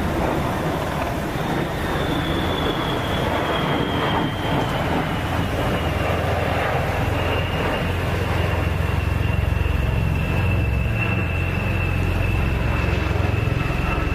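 V-22 Osprey tiltrotor flying low: a steady turbine whine that slowly falls in pitch over a rushing rumble, with a low rotor throb growing louder in the second half.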